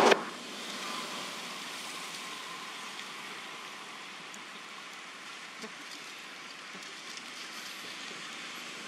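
Steady outdoor background noise: an even hiss, strongest in the upper-middle range, with no distinct events.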